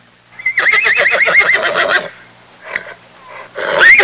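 A horse whinnying: one long, high call of about a second and a half whose pitch quavers rapidly up and down. Then come two short soft sounds, and near the end a second neigh begins with a rising pitch.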